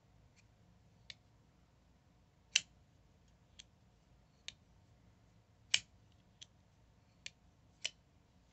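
Sharp, irregular clicks, about nine, two of them much louder: a Damned Designs Djinn flipper folding knife being flipped open and closed, its blade snapping in and out.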